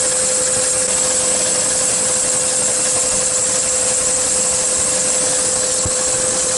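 Chevy Suburban's engine idling with the A/C compressor engaged while it takes on refrigerant: a steady running noise with one constant hum.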